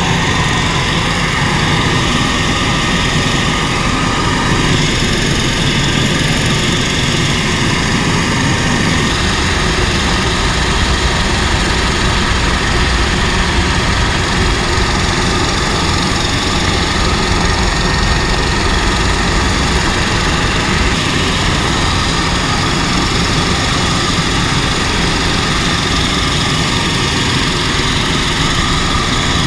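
Helicopter turbine engines and rotor running steadily at a hover, a loud, continuous drone with a deep low rumble, heard from inside the aircraft.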